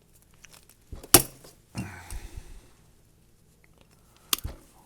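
Handling noise from working on a rubber-jacketed control cable with hand tools: a sharp click about a second in, a short rustle and scrape, and another sharp click near the end.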